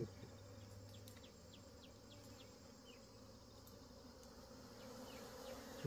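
Faint steady buzzing of honeybees around a wild hive that is being opened, with a few faint high chirps.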